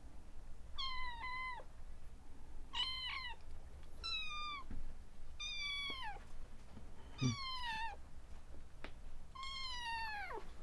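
Kitten meowing six times in high, short calls, each one dropping in pitch at its end. A brief low knock comes about seven seconds in.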